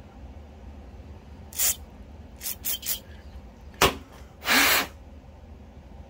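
Aerosol carburetor cleaner sprayed through its red straw in several short hisses into a small brass carburetor part, flushing rubber flecks out of it. A sharp knock comes about four seconds in, followed by one longer hiss.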